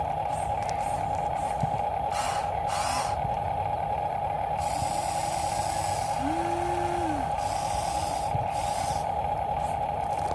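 RC model construction machinery running, with a steady high whine from its electric drive and several short hisses in between.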